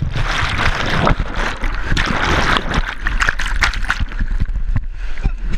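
River rapid whitewater rushing and churning around an action camera that is under the water, with irregular knocks through the noise.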